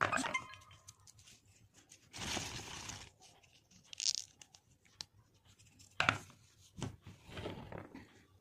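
Dry bean pods being split open and shelled by hand: short papery cracking and rustling bursts, several times a second or two apart.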